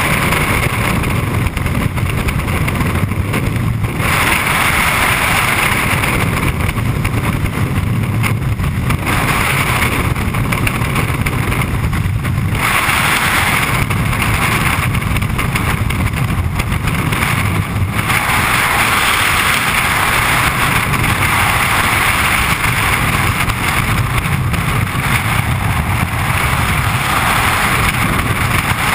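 Skydiving freefall wind rushing hard over a helmet camera's microphone: a loud, steady roar of buffeting that swells and eases every few seconds.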